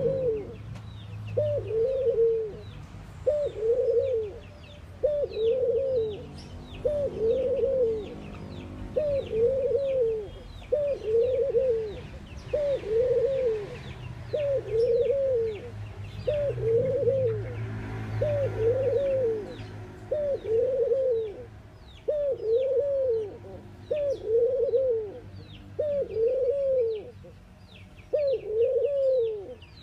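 A collared dove cooing over and over, one short coo that rises and falls about every second. Thin, high chirps of small birds run above it.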